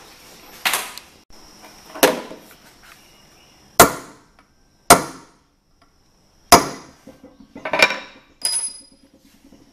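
Hammer striking a punch to put alignment marks on a torque converter's pressure plate and housing, so the balanced assembly goes back together in the same position. About seven sharp metal strikes, spaced a second or so apart, the loudest two near the middle, a few with a brief high ring.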